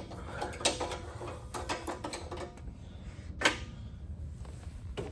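Small metal hardware clicking and knocking as a flush bolt guide is worked into place inside a storefront door's rail, with one sharper knock a little past the middle.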